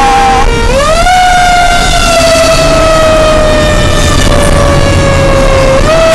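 Fire engine siren heard from inside the cab. It winds up quickly about half a second in, then falls slowly in pitch for several seconds and is wound up again just before the end, over the engine and road rumble.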